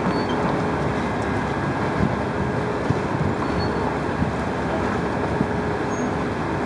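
Steady outdoor background rumble of waterfront wind and distant traffic, with a faint steady hum and a few small knocks.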